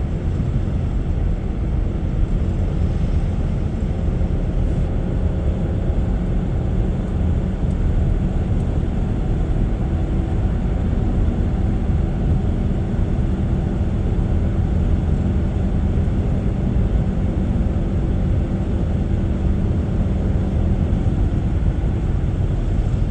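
Steady road and engine rumble of a car being driven, with no sudden events.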